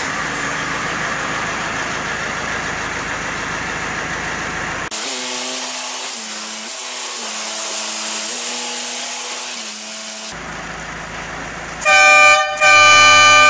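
Iveco Daily van's horn sounding twice near the end, a short toot and then a longer blast, the loudest sound here. Before it, a steady noise of the van running, with a stretch of stepping musical notes in the middle.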